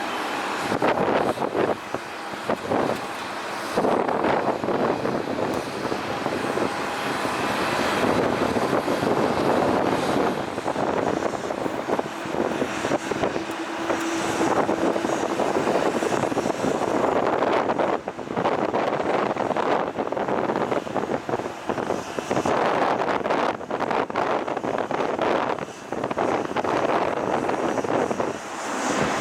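Jet airliner engines on the ground: a continuous rushing roar that swells and dips, with a short steady hum partway through.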